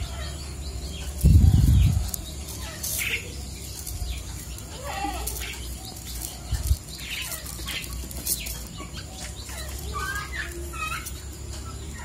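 Small aluminium bird leg rings being slid off a wire and handled on a concrete floor: faint scattered light clicks, with one louder low thump about a second in. Faint bird chirps in the background.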